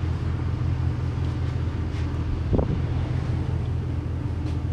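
A steady low mechanical drone, with a single short knock a little past halfway.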